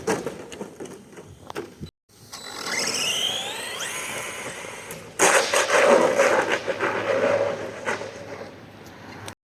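Arrma Senton 3S RC car's electric motor whining, rising in pitch as the car accelerates. About five seconds in, a loud rough scraping and rattling of the car over the ground sets in and slowly fades.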